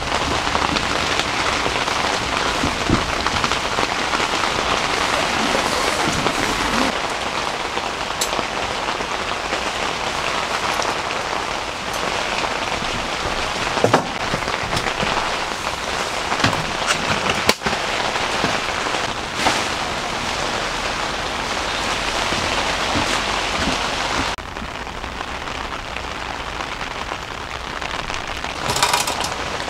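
Heavy rain pelting a tent, a dense steady hiss with a few scattered light knocks; it turns a little quieter and thinner about 24 seconds in.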